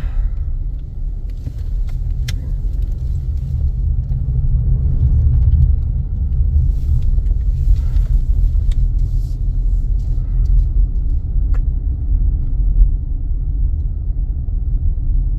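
Car driving along a road, heard from inside the cabin: a steady low rumble of road and engine noise with a few faint clicks.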